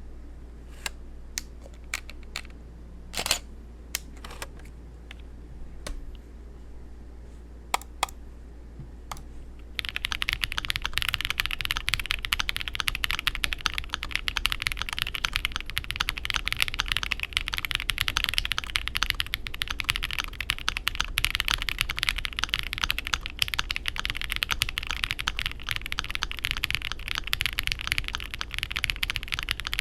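Akko SPR67 spring-mounted 65% mechanical keyboard with lubed and filmed NovelKeys Cream switches being typed on: a handful of separate keystrokes over the first ten seconds, then steady fast typing for the rest.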